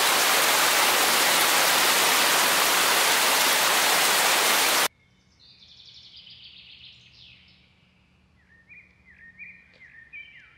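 A loud, steady rushing hiss, like heavy rain or spraying water, cuts off abruptly about five seconds in. It is followed by faint electronic chirps and stepping synth tones as music begins.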